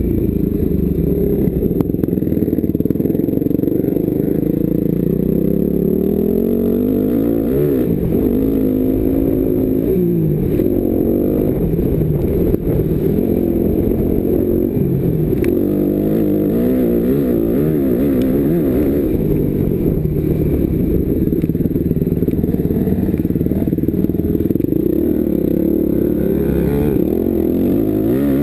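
Motocross dirt bike engine heard from the rider's helmet while riding a track, its pitch climbing and dropping over and over as the throttle is opened and closed through the corners and straights.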